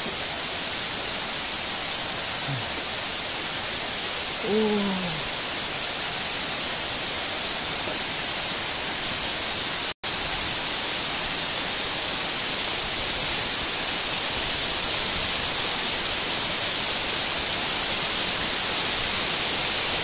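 Steady rushing roar of falling water from the Tumpak Sewu waterfall and its streams, an even hiss that runs on without a break. A brief low murmur comes about four seconds in, and the sound cuts out for an instant about halfway through.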